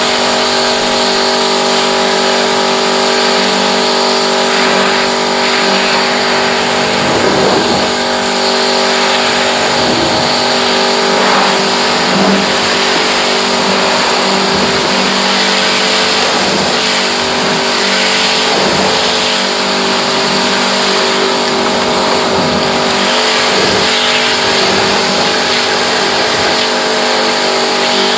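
Pressure washer running steadily: an even motor tone under the hiss of the water spray.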